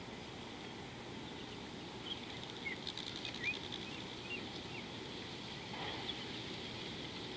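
Outdoor bush ambience: a steady hiss with a constant high band, and a few short bird chirps about two to four seconds in, with a quick run of faint clicks near three seconds.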